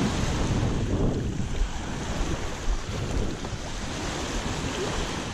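Waves washing onto the beach, with wind buffeting the microphone in a steady low rumble.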